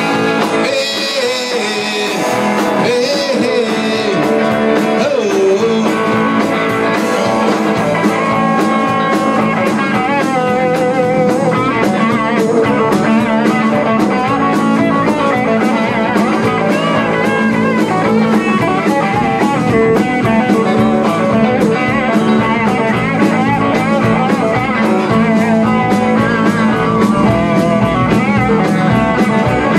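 Rock band playing live in a small room: electric guitars over a drum kit, with a lead line of bending, wavering notes.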